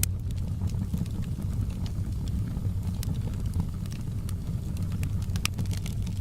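Fireplace fire burning with a steady low rumble and scattered sharp crackles, one louder snap about five and a half seconds in.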